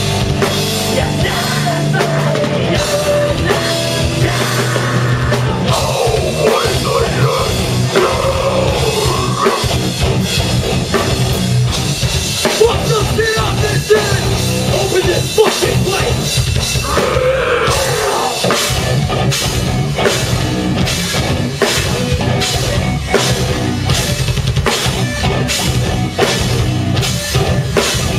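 A heavy rock band playing live at full volume: loud heavy-metal-style music over a drum kit, with the drumming growing busier in the second half.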